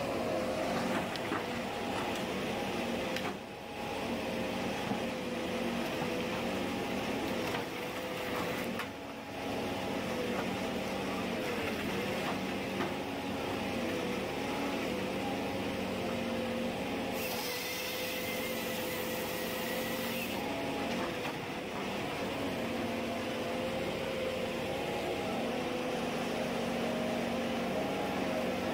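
Ponsse Ergo forestry harvester running, its diesel engine and hydraulics giving a steady hum with a whine that wavers in pitch as the harvester head works a felled log.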